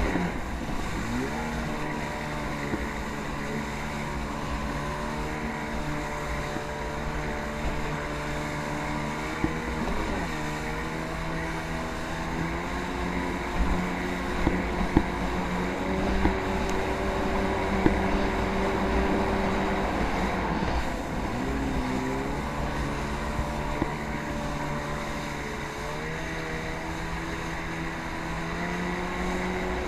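Jet ski engine running, its pitch dropping and climbing again several times as the throttle is eased off and opened back up.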